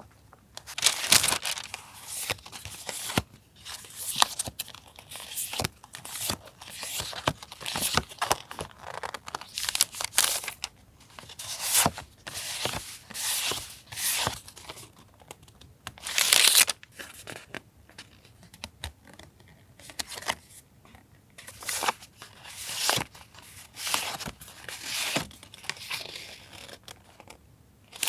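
Paper and plastic packaging rustling and crinkling in repeated handling bursts, with short tears and clicks, as new stationery items are unwrapped and handled.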